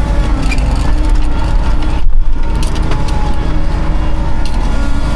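Diesel engine of heavy farm machinery running steadily while chopping corn silage: a loud, even, low rumble.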